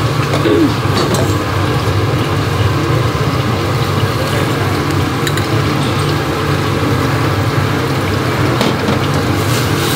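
Steady roar of a high-pressure gas stove burner running full under a small metal pan, with a few light clinks of utensils.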